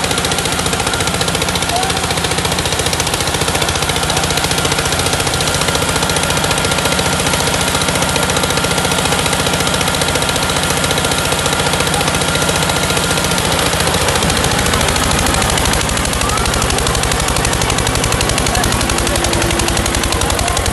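Tractor diesel engines under heavy load, pulling hard against each other in a chained tug-of-war, with a loud, rapid, rattling beat from the firing. The beat shifts at about two-thirds of the way through, as the engine note settles.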